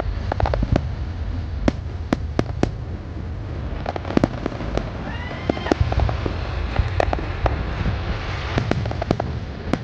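Aerial fireworks display: an irregular run of sharp bangs and cracks over a steady low rumble, with a brief whistle about five seconds in.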